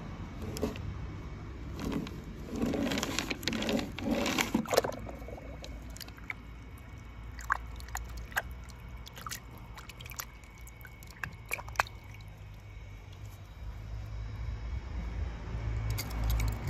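Wet squishing and scraping as small die-cast toy cars are pushed through thick paint and handled in water, with scattered small clicks and taps of the toys, over a steady low hum. The scraping is densest for a few seconds near the start.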